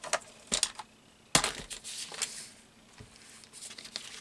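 Paper being cut and handled on a craft table: a short tap, then a sharp hit about a second in that runs into a second of scraping, cutting noise, followed by light rustling.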